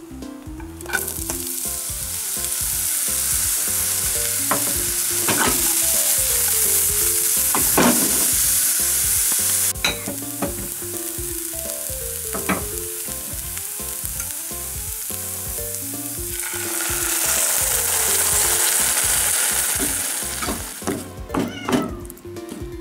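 Chopped green onions (negi) frying in sesame oil in a frying pan: a loud, steady sizzle, with a wooden spatula stirring and scraping the pan now and then. The sizzle drops suddenly about ten seconds in and swells up again later as the seasoning mix cooks down with the onions.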